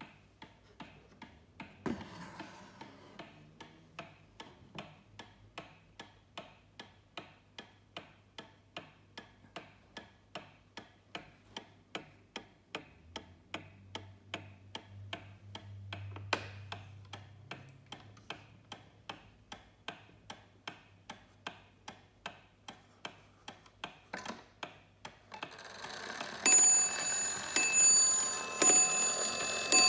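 Antique New Haven Jerome mantel clock ticking with an even, quick beat of its pendulum movement. Near the end the strike train starts up and the clock begins striking the hour at twelve, each loud blow ringing on.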